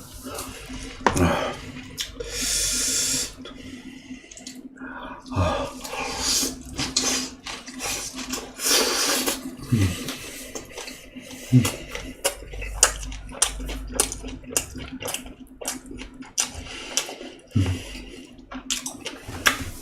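Close-miked eating sounds: wet chewing and smacking of boiled pork wraps and fermented skate, in irregular bursts, with scattered clicks and knocks.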